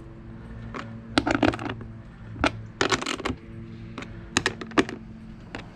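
Sharp metallic clinks and clicks of cart hardware and tools being handled, coming in several short clusters, over a steady low hum.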